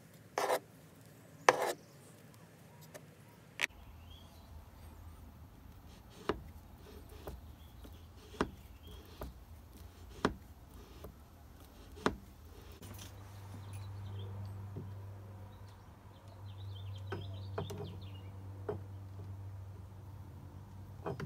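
Scattered sharp metallic clicks and taps from a wrench and the steel and brass valve gear of a live-steam locomotive chassis being handled, two louder clicks near the start and lighter ones every second or two after. A low steady hum comes in about halfway through.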